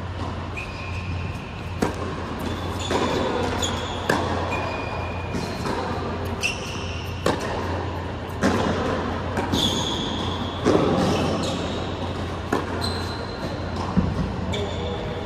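Tennis ball struck back and forth by rackets in a rally on an indoor hard court: a sharp pop every two to three seconds, with short high sneaker squeaks on the court between shots. A steady low hum from the hall runs underneath.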